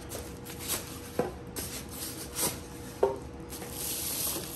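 Packaging being handled as a vacuum sealer in a thin plastic bag is lifted out of its cardboard box. The plastic rustles, with a few sharp knocks and taps against the box.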